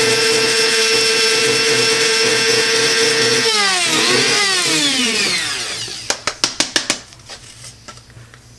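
Braun electric blade coffee grinder running at a steady high whine as it grinds coffee beans finer. About three and a half seconds in the motor is released and its pitch falls as it spins down; a short second press makes it rise and die away again. About six seconds in comes a quick string of sharp clicks and knocks.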